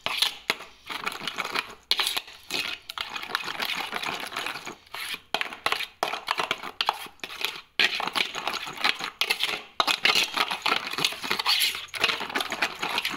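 A spoon scraping and clinking against a stainless steel bowl in rapid strokes while stirring a thick yogurt-and-spice marinade, with a few brief pauses.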